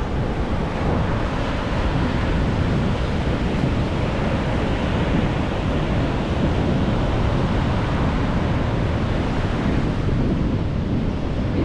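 Steady wash of ocean surf breaking on a sandy beach, mixed with wind buffeting the microphone.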